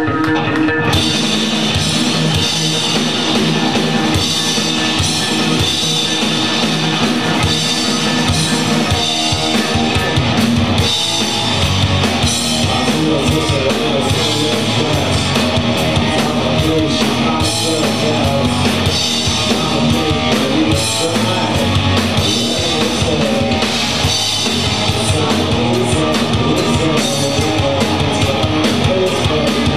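A live rock band playing loud: electric guitars, bass and drum kit, with a singer. A held chord opens into the full band about a second in, and the low end grows heavier about eleven seconds in.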